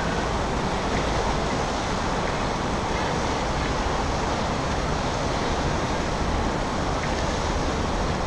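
Steady noise of a houseboat under way: engine running with water rushing past the hull, and wind on the microphone.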